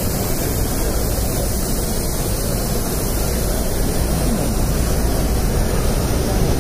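Steady, even roar of a busy exhibition hall's background noise, with no single sound standing out.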